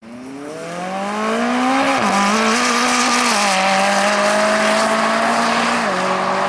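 Aston Martin Vulcan's naturally aspirated V12 running on track. The note grows louder and rises in pitch over the first two seconds, then holds, stepping down in pitch about two, three and a half and six seconds in.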